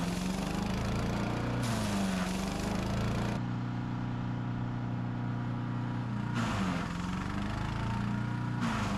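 Gas-engine wood chipper running as branches are fed through it. Twice the engine note sags under load while a harsh grinding rush of wood being chipped and blown out sets in, once about one and a half seconds in for nearly two seconds, and again from about six and a half seconds for about two seconds. Between the two, the engine runs steadier and cleaner.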